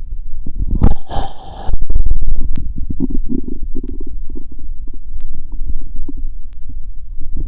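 Abdominal bowel sounds heard through a stethoscope: irregular low gurgles over a constant low rumble. A loud scrape comes about a second in.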